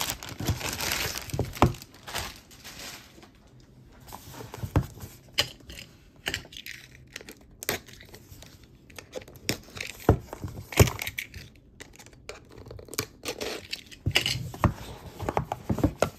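Packing material crinkling and tearing by hand as wrapped jewelry is unpacked, with scattered sharp clicks and light knocks of small items being handled.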